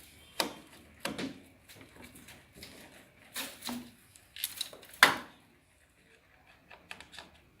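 Scattered knocks, clicks and clatters of parts and tools being handled while the pumps are worked loose from inside a washer-dryer. The loudest knock comes about five seconds in, followed by a brief lull and a few small ticks.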